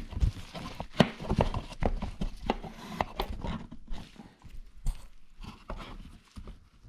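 Handling noise: irregular clicks and knocks of small brake caliper parts and the camera being handled and set down, busiest in the first four seconds and sparser after.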